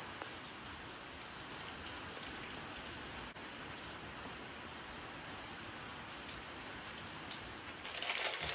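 Steady rain falling, an even hiss of raindrops. Near the end a louder rustling takes over.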